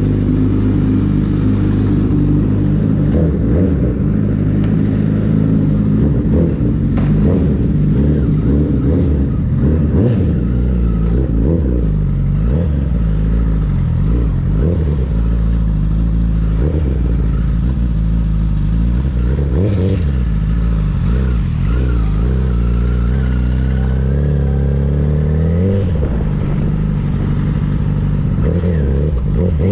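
Honda CBR1000RR SP's inline-four engine with a Yoshimura exhaust, running under way as the bike is ridden. The engine note rises and falls with throttle and gear changes, climbing in a couple of revs near the end.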